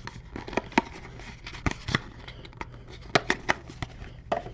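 Baseball trading cards and their pack wrapper being handled by hand: a string of sharp, irregular clicks with light crinkling.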